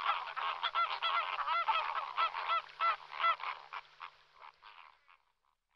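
Waterbirds giving a dense series of goose-like honking calls, several birds overlapping, which thin out and fade away near the end.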